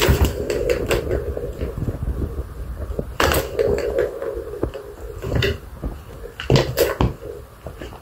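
Plastic balls rolling around the circular tracks of a tiered tower cat toy, a steady rolling rattle, with clicks and knocks as a kitten bats at them. The sharpest knocks come about three seconds in and again near seven seconds.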